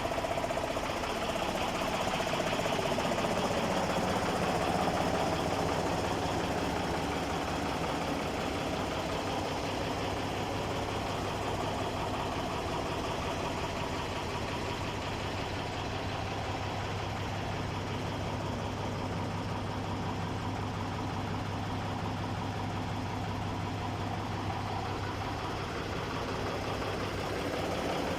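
Diesel engine of a vintage Mercedes-Benz 2624 truck idling steadily, a little louder over the first few seconds.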